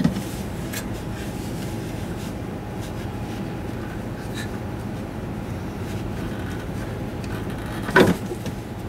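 Invidia R400 stainless rear muffler section being worked loose by hand from its mounts, giving a few faint metal clicks and one loud clunk about eight seconds in as it shifts, over a steady background hum.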